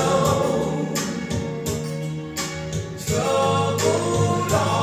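Music from a vinyl record playing: singing voices over a steady beat.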